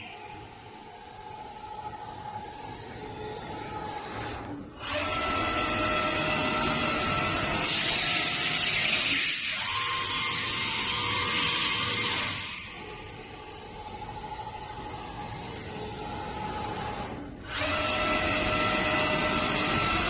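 Five-axis CNC router running, its spindle giving a steady whine. The whine alternates between quieter stretches and louder, hissier ones, which set in about five seconds in and again near the end.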